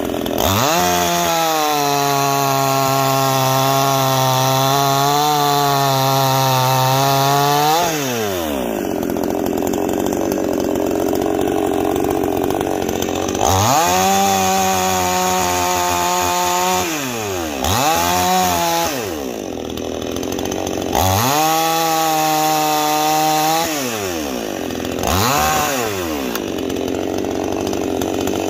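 Neo-Tec NCS5800 58cc two-stroke chainsaw bucking ash logs. It runs at full throttle through a long cut, drops to idle, then takes two shorter cuts, each followed by a quick blip of the throttle, idling in between.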